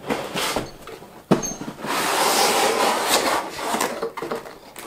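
Cardboard packaging of a large boxed toy being opened and handled: a sharp snap a little over a second in, then a long rubbing scrape and further rustling.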